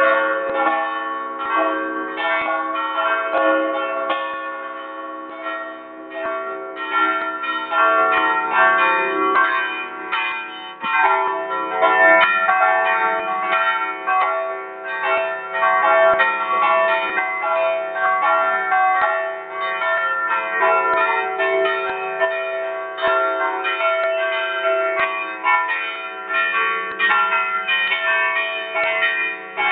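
Several large church bells in the belfry, rung by hand with ropes, struck in quick, overlapping succession: a full festive peal. The ringing is loud and dense, each strike's tone hanging on under the next.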